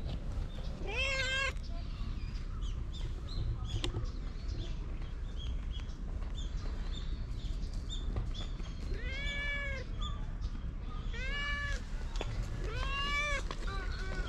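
A stray tortoiseshell cat meows four times while being stroked: once about a second in and three times in the last third, each a short call that rises and falls in pitch. These are friendly, attention-seeking meows.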